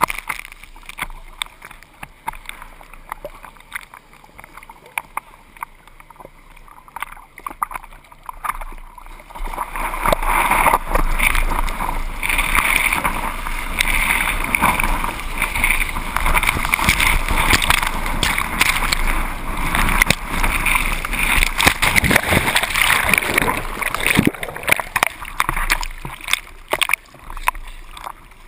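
Seawater sloshing and splashing right at the lens, with scattered small knocks at first. About ten seconds in it swells into a loud, churning rush of whitewater as the bodyboard rides a breaking wave, then eases off near the end.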